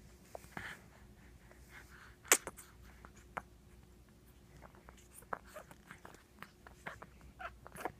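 A single sharp sneeze about two seconds in, followed by scattered faint clicks and short puffs of breath.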